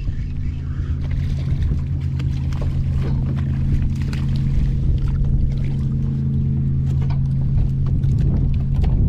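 Boat motor running with a steady hum over a low rumble, with scattered light clicks and taps.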